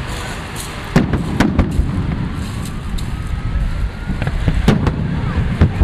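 Fireworks display: sharp bangs of fireworks bursting, a quick cluster of three about a second in and two more near the end, over a steady low rumble.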